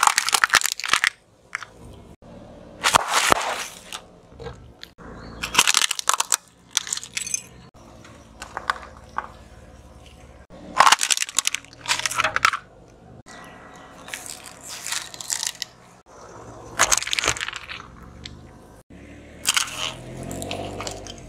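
A car tyre rolling over and crushing a run of plastic toys and small objects one after another. Sharp cracking and crunching bursts come every two to three seconds, each cut off abruptly.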